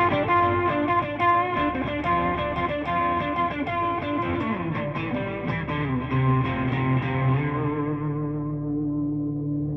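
Instrumental music: a guitar played through effects, many plucked notes layered over a sustained low drone. The higher notes thin out about seven seconds in, leaving the low tones ringing.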